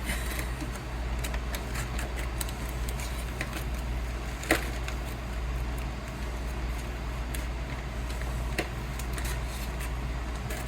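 Scissors cutting open a plastic food package, with scattered small clicks and rustles and a sharper snip about four and a half seconds in, over a steady low hum.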